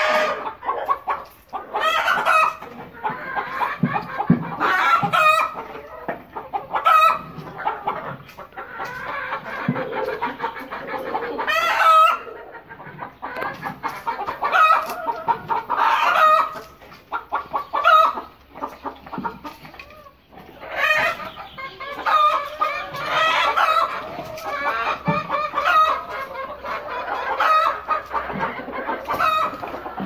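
A flock of Golden Misri and other desi chickens clucking, their short calls overlapping, with a rooster crowing at times.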